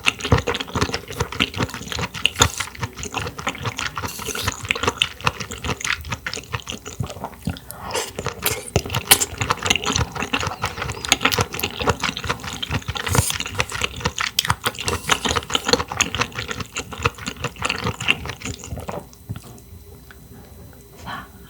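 A person eating clams up close to the microphone: many quick wet smacks and clicks of chewing, dying down near the end.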